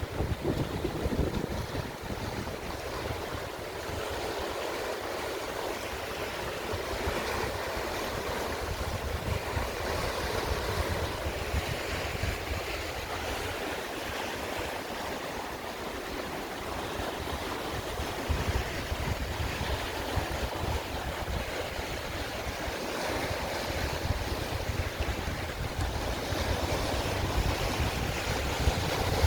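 Sea surf washing on the shore in strong wind, with gusts buffeting the microphone in an uneven low rumble.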